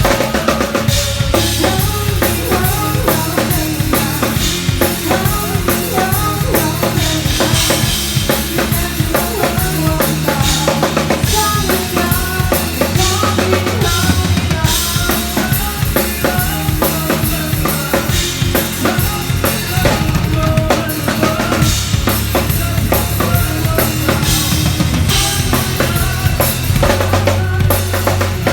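Drum kit playing a steady groove, with kick drum, snare and rimshots, along with bass and other pitched instruments.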